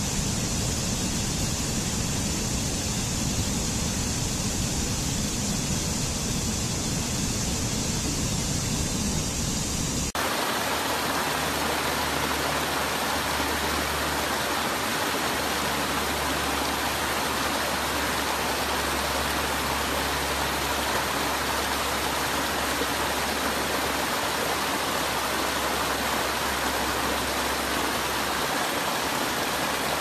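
Steady rush of water from a cascading forest stream tumbling over rocks. About ten seconds in it changes abruptly to a fuller, steady rush with a low rumble beneath, from a second set of small falls.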